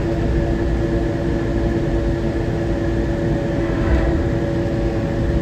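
Newark AirTrain monorail car running along its guideway, heard from inside the car: a steady low rumble under an even, multi-tone hum from the drive.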